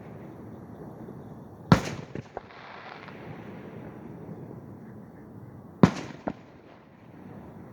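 Aerial fireworks shells exploding: two sharp booms about four seconds apart, each followed by a smaller pop or two and a rolling rumble as the sound echoes away.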